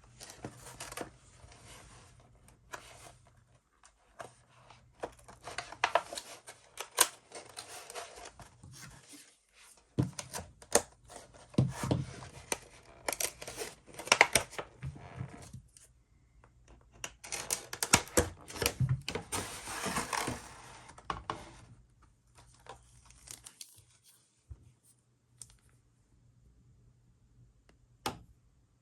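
One Piece card booster pack wrappers being torn open and crinkled by hand, in three or four bouts of rustling a few seconds each, with sharp clicks in between.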